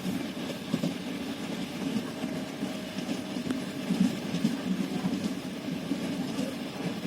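Train running on rails: a steady low rumble of the wheels, with a few sharp knocks from the wheels.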